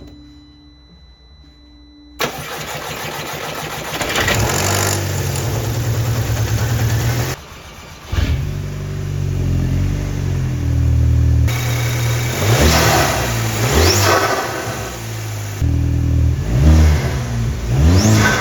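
Audi TT Mk2's 2.0 TFSI four-cylinder petrol engine (BWA) being cranked over and starting about two seconds in. It then runs, with several short revs rising and falling in the second half. It runs smoothly with no splutters or pops: the misfire has been cured by new fuel injectors.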